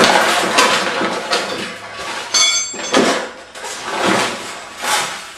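A heavy cardboard shipping box being tipped over and slid onto padding on a concrete floor: cardboard scraping and rustling, with several knocks about three, four and five seconds in and a brief squeak of the packing.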